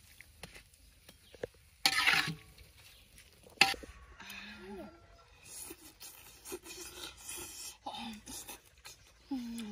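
Eating sounds: a short loud noisy burst about two seconds in and a sharp click shortly after, then soft mouth sounds of chewing with a few brief murmured voice sounds, one near the end.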